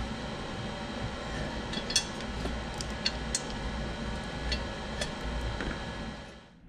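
Light metallic clicks and clinks of hand tools on exhaust bolts and fittings, scattered through a steady droning hum, which fades out near the end.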